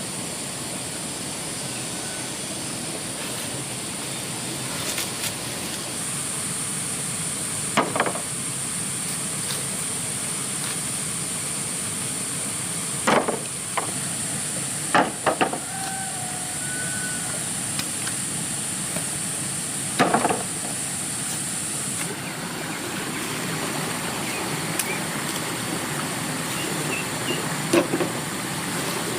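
Steady outdoor hiss with a high, even buzz that starts about six seconds in and stops abruptly around twenty-two seconds, and a handful of short sharp knocks.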